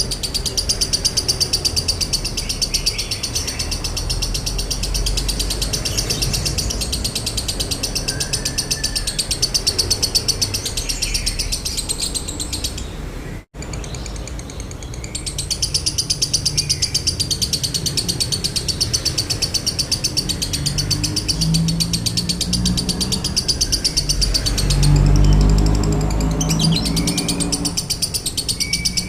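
Lovebird giving a long, very fast, unbroken chattering trill (ngekek) in the 'konslet' style. It breaks off briefly about halfway, then resumes, with a low rumble underneath near the end.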